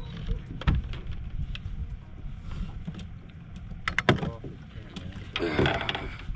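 Handling noises in a fishing boat as a just-caught crappie is brought in and held up: scattered sharp knocks and clatter, a cluster about four seconds in and a longer rustling burst near the end, over a low steady rumble.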